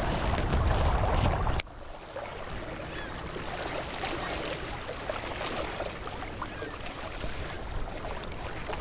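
Wind buffeting the microphone with a loud low rumble, which stops abruptly with a click about a second and a half in. After it comes a quieter, steady outdoor hiss of wind and water with faint scattered ticks.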